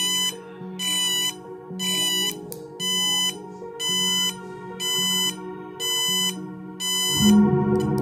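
Bicycle turn-signal tail light's buzzer beeping about once a second while the turn signal flashes, over background music. The beeping stops about seven seconds in, when the light is switched to plain red, and the music gets louder.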